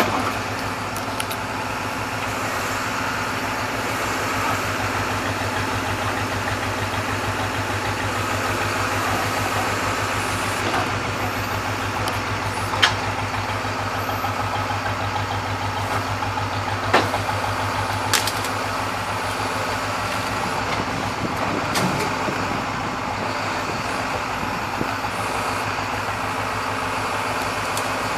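An engine idling steadily with an even low hum, with a few sharp clicks or knocks now and then.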